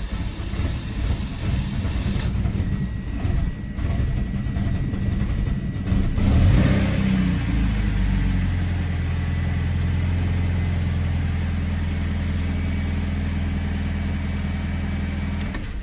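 BMW E46 316ti's four-cylinder engine just after starting, running unevenly and hesitating for lack of fuel pressure after a fuel filter change. About six seconds in it rises and catches, then settles into a steady, even idle.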